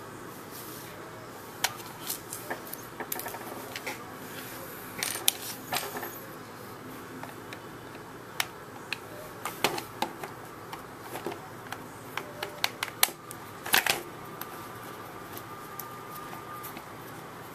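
Irregular clicks and taps of hard plastic and a small screwdriver as an Xbox 360 controller is handled and worked on, with a few louder clatters about five seconds in and again near thirteen to fourteen seconds.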